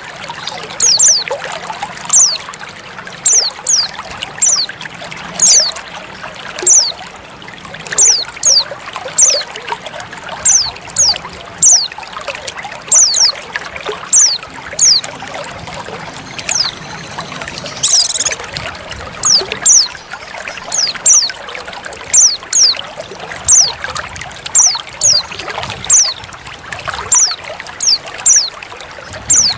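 Female white-eye calls: short, high, falling chirps, mostly in pairs, repeating about once a second over a steady trickle of running water.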